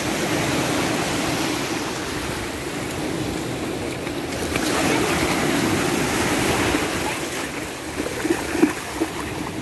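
Sea waves breaking and washing up the beach in a steady rush. A few sharp splashes come near the end as a child splashes down into the shallow water.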